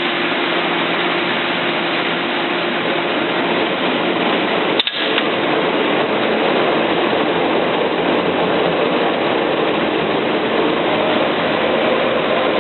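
Goebel Rapid D slitter rewinder running on its test run: a steady machine noise with faint hums, broken by one sharp click about five seconds in.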